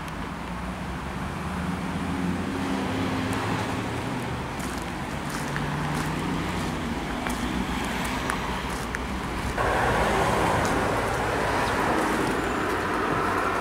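Road traffic: a motor vehicle's engine running, slowly growing louder, with a steady rushing noise that jumps up suddenly about ten seconds in.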